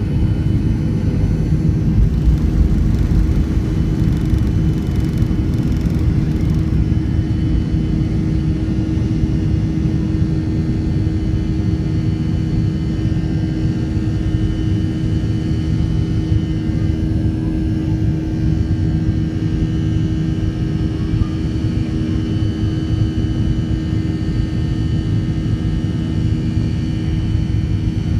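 Boeing 737-800's CFM56-7B jet engines at takeoff thrust, heard inside the passenger cabin as a steady roar with a constant whine. The rough runway rumble of the first few seconds gives way to a smoother drone once the airliner has lifted off and is climbing.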